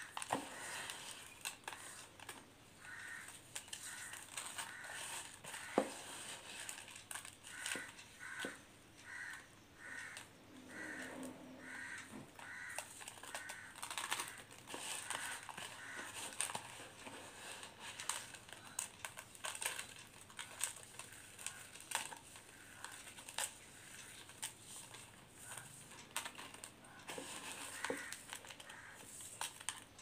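Wet para crystals squeezed and crushed by hand in a plastic bowl: a crunchy crackle made of many small sharp clicks. For several seconds in the first half, a quick series of short high calls sounds in the background, about two a second.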